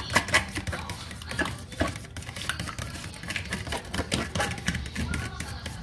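Metal fork beating an egg-and-cream mixture in a plastic food container, the tines clicking and tapping quickly and irregularly against the bottom and sides.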